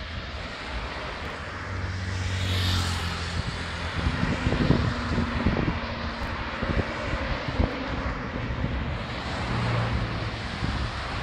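Distant engine drone that swells and fades, with wind buffeting the microphone in gusts, loudest in the middle.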